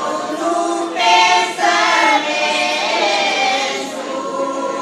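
Alentejo women's choir singing cante alentejano in long held notes, swelling louder about a second in.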